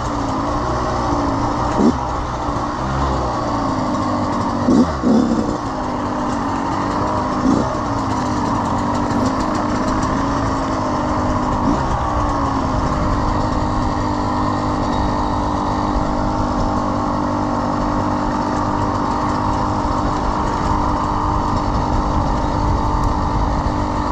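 Kawasaki KX100 two-stroke dirt bike engine running at low revs, with short throttle blips about 2, 5, 7 and 12 seconds in, then holding a steady note.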